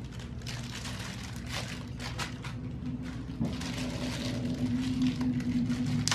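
Light clicks and rustles of cabinet door handles and their screws being handled, over a steady low hum.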